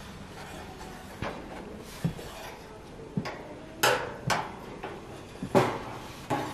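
Metal tongs knocking and clinking against a stainless-steel gas grill while the pizza is handled: about eight sharp, irregular clanks, the loudest a little past halfway and again near the end.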